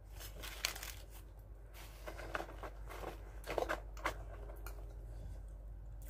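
Rustling and crinkling of a paper takeaway bag and a plastic ketchup sachet being taken out and torn open, in short irregular bursts with a few sharp clicks.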